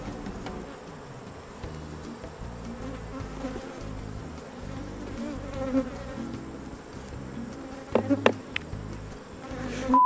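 Honeybees buzzing in a steady hum around an open hive, from a colony that has turned a little aggressive. A few sharp clicks sound about eight seconds in.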